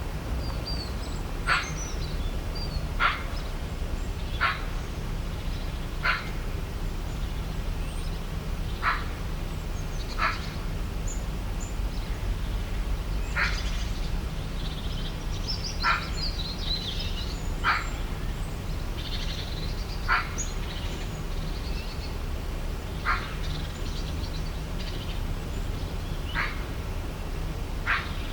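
A short animal call repeated over and over, roughly every one to three seconds, over a steady low rumble, with faint high bird chirps in the middle stretch.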